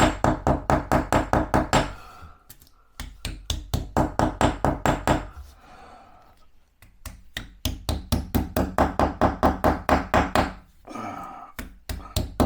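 A hammer driving hammer-in wall plugs with their screws into drilled holes in a wall. It lands quick, even strikes, about five a second, in four runs with short pauses between them.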